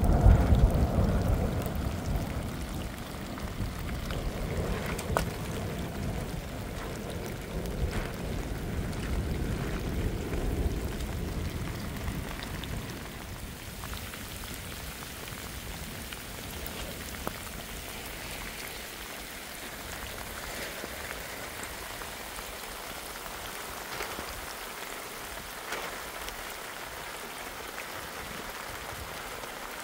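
Steady rain falling, an even hiss with scattered drops ticking. A loud low rumble is strongest at the start and dies away by about twelve seconds in.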